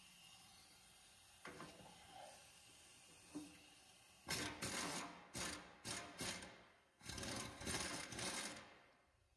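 Cordless impact driver on a socket and extension, rattling in several short bursts and then one longer run as it works a rusty nut on a lathe base bolt. A couple of light clicks come first as the socket is fitted.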